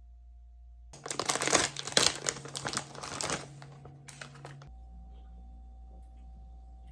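Packaging crinkling as it is handled: a dense run of sharp crackles starting about a second in and lasting about two and a half seconds, then a few softer rustles.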